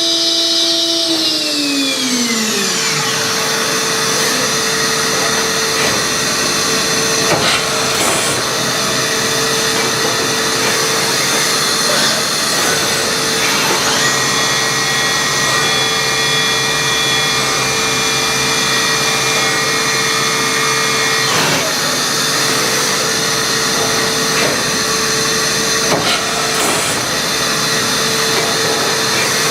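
Matsuura MAM72-63V 5-axis CNC machining center: several whining tones fall in pitch over a couple of seconds as the spindle spins down. The machine then runs on with a steady hiss and hum and a few short clicks.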